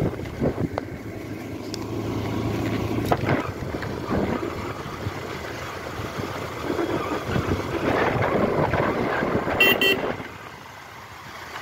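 Motorcycle running on the road with wind noise on the microphone, and two short horn beeps near the end, after which the sound drops quieter.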